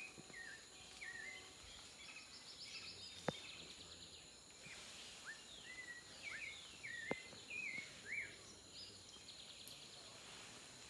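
Outdoor ambience of many short chirping bird calls and a few fast trills over a steady high insect drone, with two sharp taps, about three and seven seconds in.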